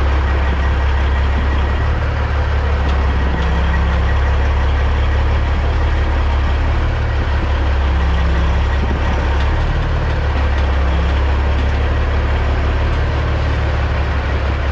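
CAT C15 inline-six diesel of a 2006 Peterbilt 379 semi running steadily at low revs, a deep even drone.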